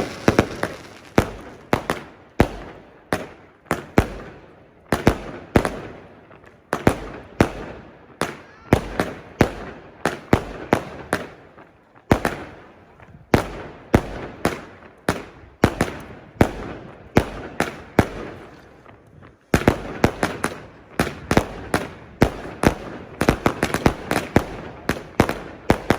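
Fireworks going off: a dense, irregular run of sharp bangs, several a second, each trailing off in a short echo.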